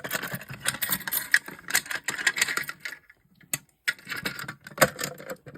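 Rapid irregular clicking and rattling of fire alarm devices being handled, with a short pause about three seconds in before a few more clicks.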